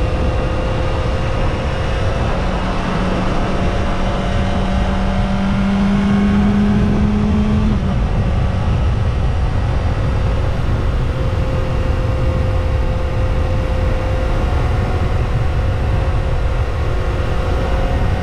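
Kawasaki ZX-25R's 250 cc inline-four on its stock exhaust, running under way with a steady low rush of wind noise. The engine note climbs slowly for several seconds, then drops about eight seconds in.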